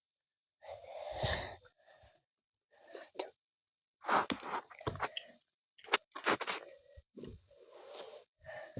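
Fidget toys being handled and squeezed: irregular short crinkly, squishy rustles and sharp clicks, with brief silent pauses between them.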